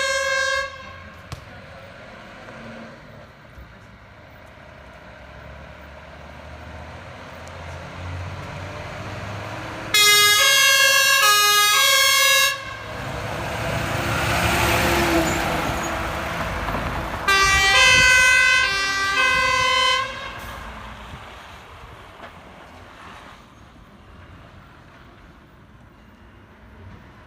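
Emergency vehicles' two-tone sirens, alternating high and low, sounding in two blasts of about two and a half seconds each. Between the blasts a heavy vehicle passes, its noise swelling and fading. Quieter road noise fills the rest.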